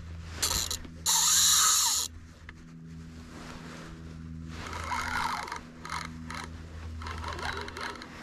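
Spinning reel being cranked to retrieve line, its gears giving a steady low whirring hum. A loud rustling burst comes about a second in, with softer rustles later.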